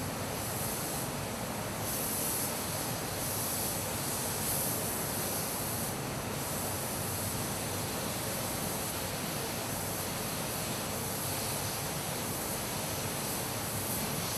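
Spray painting: the hiss of an automated spray gun coating motorcycle fairing panels, over the steady rush of the paint booth's air. The hiss swells and eases several times in the first few seconds as the gun passes.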